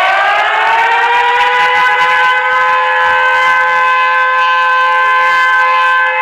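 Mock emergency-alert siren winding up, rising in pitch over the first second or so, then holding a loud steady chord of several tones.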